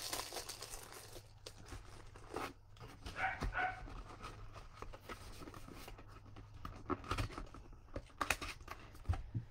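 Clear plastic packaging rustling and crinkling in the hands as products are unwrapped, with scattered crackles. About three seconds in come two short high-pitched squeaks.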